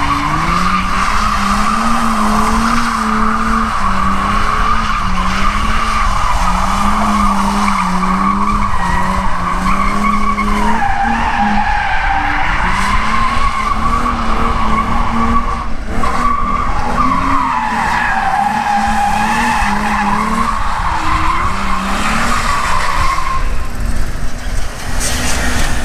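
1999 Ford Mustang drifting: its tires squeal in one long, wavering screech over the engine's rising and falling revs. The squeal's pitch sags twice, about a third of the way in and again a little past halfway.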